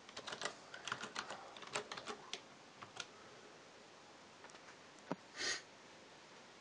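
Typing on a computer keyboard: a quick run of key clicks over the first three seconds, then a few scattered keystrokes. A brief hissing noise comes about five and a half seconds in.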